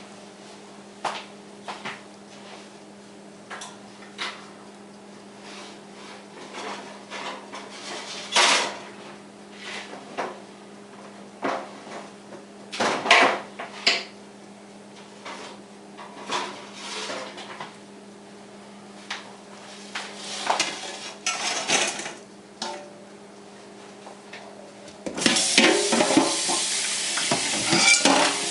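Scattered clinks, clatters and scrapes of a metal utensil against a metal baking tray and a plate as toaster-oven French fries are moved off the tray, over a low steady hum. About 25 seconds in, a loud steady hiss starts and carries on.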